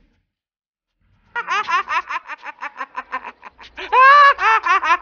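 About a second and a half of silence, then a man's high-pitched, rapid cackling laugh, rising into long drawn-out peals near the end.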